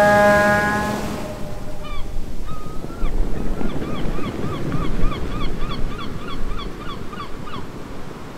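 A ship's horn sounds a long steady note that fades out about a second in. Then a bird gives a rapid series of short squawks, about three a second, over a wash of waves.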